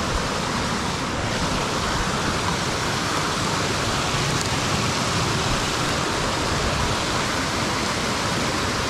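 Creek water rushing over and between boulders in a small cascade: a steady, even rush that holds the same level throughout.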